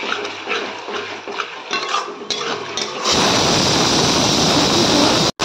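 A spatula scraping and clinking against a kadhai as the tomato-onion masala is stirred. About three seconds in, a louder, steady sizzling of the masala frying in hot oil takes over.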